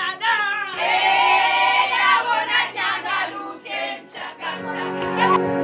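A group of voices singing together over a steady low musical drone. Near the end it gives way to soft, slow instrumental music.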